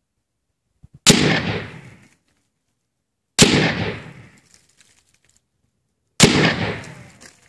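.308 rifle fired three times, about two and a half seconds apart. Each shot is sharp and loud and fades out over about a second of echo. Two faint clicks come just before the first shot.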